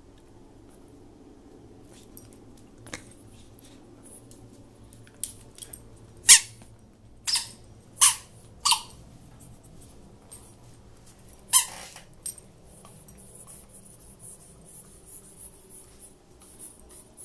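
Rubber squeak toy fish squeaking as a Pembroke Welsh Corgi bites down on it: about five sharp, short squeaks come in quick succession in the middle, with a few fainter squeaks before and after.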